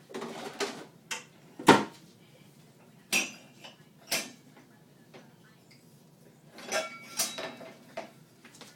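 Dishes and cutlery clinking and knocking together as they are taken out of a dishwasher, in separate clatters with the loudest knock about two seconds in and a quick run of clinks near the end.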